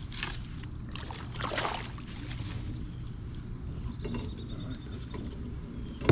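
Water splashing and sloshing around a kayak on a river, with a few louder splashes in the first three seconds. A short run of rapid high clicks comes about four seconds in.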